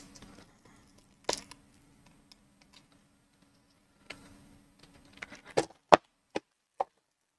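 Plastic-wrapped washi tape rolls being handled: a few scattered sharp crinkles and taps, then a quick run of five or six clicks a little before the end.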